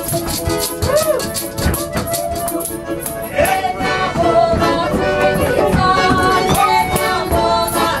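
Live Russian folk music: an accordion plays held chords under a fast rattling percussion beat, with voices singing. The music grows louder about three seconds in.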